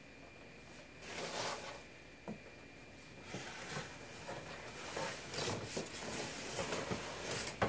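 Packaging being handled while a box is opened: irregular rustling and scraping of cardboard and wrapping, with a short click a couple of seconds in and a sharper click near the end.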